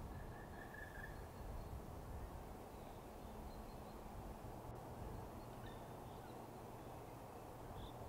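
Faint outdoor ambience: a steady low rumble with a few faint bird calls, the clearest a thin call lasting about a second near the start.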